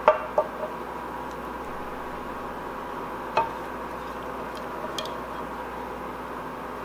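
A spatula scraping thick sauce out of a skillet, with a few light clicks and one sharper knock of the utensil against the pan about three and a half seconds in, over a steady background hum.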